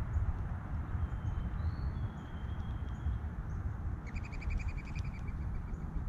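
Wild songbirds calling: thin, high drawn-out whistles in the first half, then a rapid trill of about a dozen quick notes about four seconds in, over a steady low rumble.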